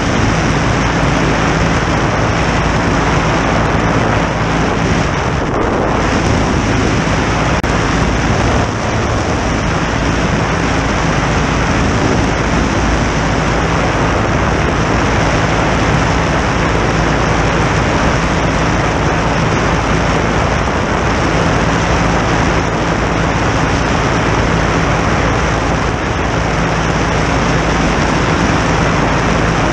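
Legal Eagle ultralight's two-cylinder opposed engine and propeller running steadily in flight, heard close up under a heavy rush of wind on the microphone.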